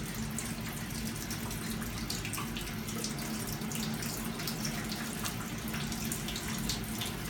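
Water pouring steadily and slowly from a metal bucket into a steel lab sink. It is a soil-water suspension being decanted off the settled soil.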